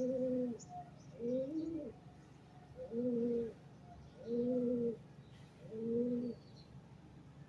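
A dove cooing: five low, even coos about one and a half seconds apart, the last about six seconds in.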